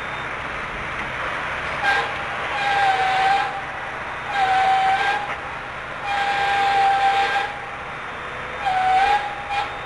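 A high, whistle-like tone sounding in about five blasts of up to a second and a half each, over a steady din of heavy machinery at a drilling rig.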